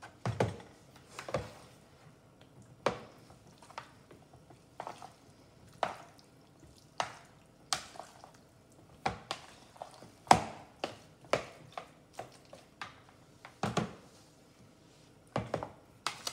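Wooden serving utensils knocking against plastic mixing bowls as cubes of chicken and chopped vegetables are tossed in marinade. The knocks come singly at an uneven pace of roughly one a second.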